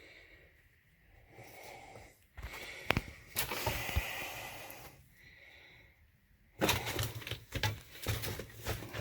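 A man breathing hard as he crawls through a cramped air-raid shelter, with scuffs and knocks from his movement: two sharp knocks about three and four seconds in, and a busier run of scuffing near the end.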